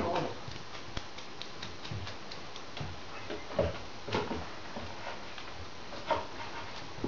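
Puppies scuffling in play: scattered light clicks and taps of paws and claws, with a few louder brief scuffles about three and a half, four and six seconds in.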